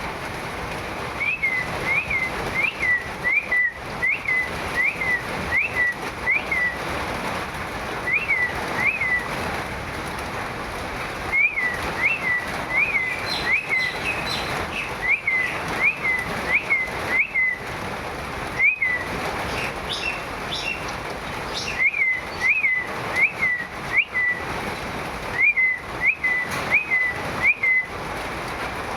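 A bird repeats a short whistled call in runs of four to eight notes, about two a second. Each note slides up sharply and drops back. Steady rain hisses underneath.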